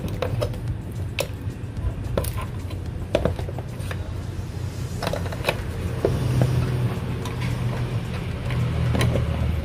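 Scattered light clicks and knocks of hoses and clips being worked by hand in a car's engine bay, at irregular intervals over a steady low hum.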